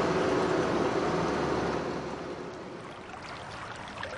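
A steady rushing noise, a vehicle or location ambience, that fades away over the second half, with a few faint short high chirps near the end.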